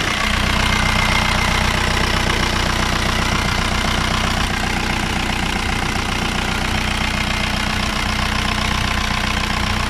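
Diesel car engine idling steadily, its sound very harsh; the owner does not know the cause.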